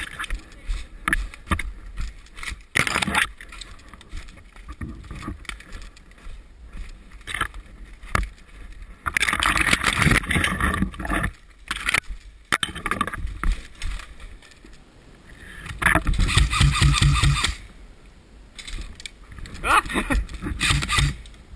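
Footsteps crunching in snow and bare twigs scraping and snapping against clothing and gear, with short clicks and rustles throughout. There are louder stretches of brushing and crunching about nine, sixteen and twenty seconds in.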